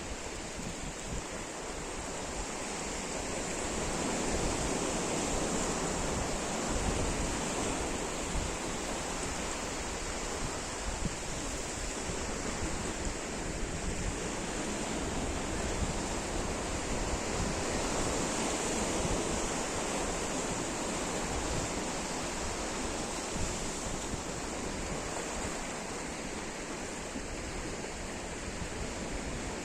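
Sea surf breaking on the shore: a continuous rush of waves that swells and eases every several seconds, with some wind buffeting the microphone.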